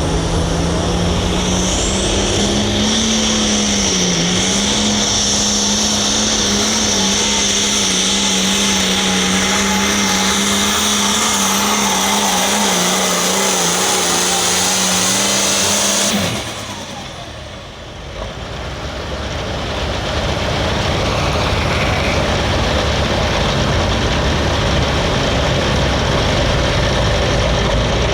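Hot farm pulling tractor's diesel engine running hard at a steady high pitch with a high whine over it, dipping briefly about four seconds in, then cutting off suddenly about sixteen seconds in. A broad engine rumble builds back up over the following few seconds.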